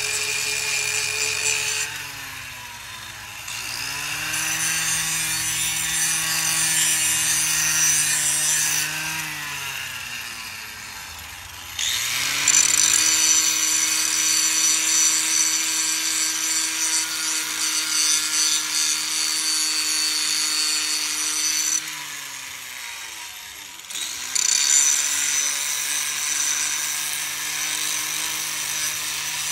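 Electric power sander working against rusty go-kart metal, a motor hum under a harsh scraping hiss. Three times the tool is let off and its motor winds down, spinning back up a couple of seconds later.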